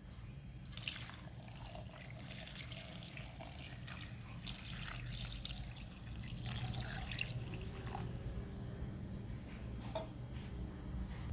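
Water running from a tap into a sink, splashing, with small clicks and knocks. It starts about a second in and eases off about eight seconds in.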